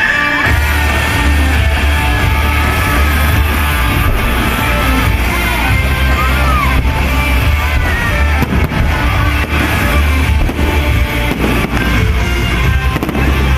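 Loud amplified music with a heavy bass and singing.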